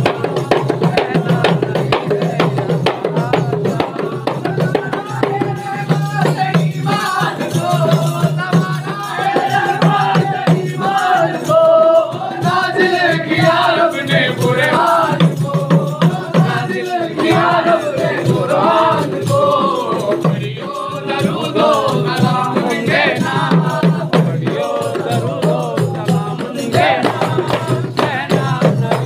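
Several daf frame drums beaten by hand in a fast, steady rhythm, with a group of men chanting devotional verses together over them. The singing is loudest through the middle stretch.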